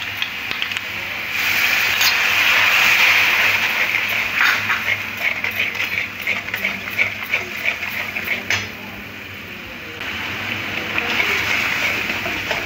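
Water poured into a hot metal kadai of masala paste frying in oil, hissing and sizzling loudly about a second in. Then a metal spatula scrapes and clicks against the pan as the wet masala is stirred, and the sizzle picks up again near the end.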